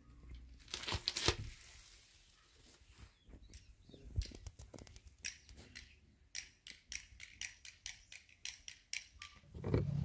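Light, irregular clicks and taps: two sharp ones about a second in, then a quick run of them, several a second, through the second half, over a faint low hum.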